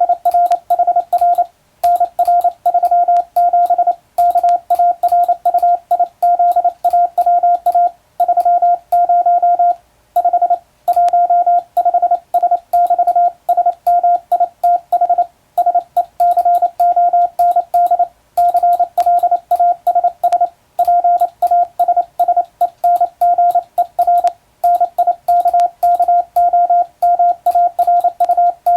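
Morse code sent by hand on a telegraph key, heard as a single steady mid-pitched tone keyed on and off in short dots and longer dashes. Each element starts and stops with a faint click, and brief pauses between words come every few seconds.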